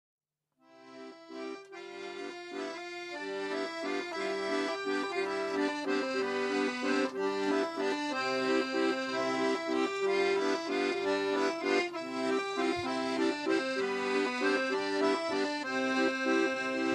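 Paolo Soprani piano accordion playing a lively folk tune, starting about half a second in and swelling up over the first few seconds.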